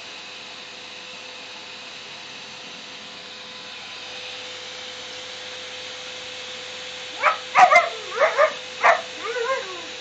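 Vacuum cleaner running steadily with a faint whine. About seven seconds in, a Siberian husky puppy gives a quick run of about six yips and barks, ending in a short wavering whine.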